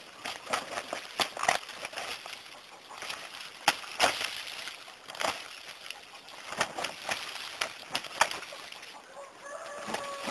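Gamecock and duck fighting: irregular sharp slaps and scuffles of wings and feet, with a short pitched bird call near the end.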